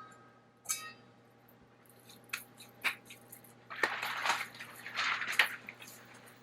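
Kitchen handling noises: a faint ringing clink near the start, a few sharp taps, then two short spells of rustling and scraping about four and five seconds in, over a steady low hum.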